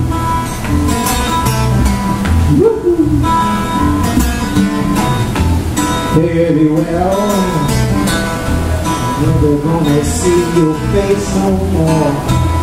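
Acoustic guitar and acoustic bass guitar playing a repeating blues riff, with bending, wavering melody notes through the middle.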